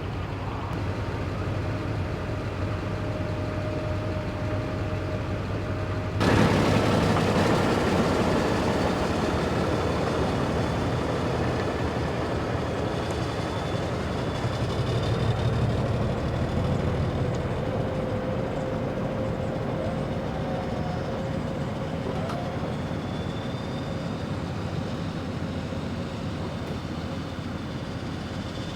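Heavy engine running steadily. About six seconds in the sound suddenly jumps louder and fuller, then slowly eases off.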